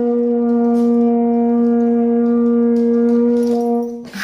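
A wind instrument blowing one long, steady horn-like note, held for about four seconds and then fading out near the end.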